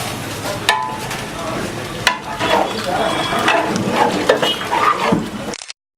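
Food sizzling in a hot pan while being stirred, with clinks and scrapes of the utensil against the metal. The sound cuts off abruptly near the end.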